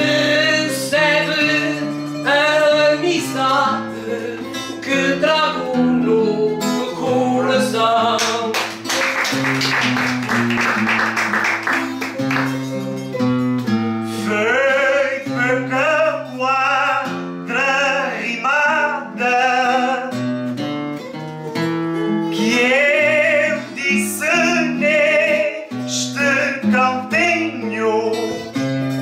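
A singer with a wavering vibrato, accompanied by plucked acoustic guitars. About nine seconds in there are a few seconds of rapid strumming.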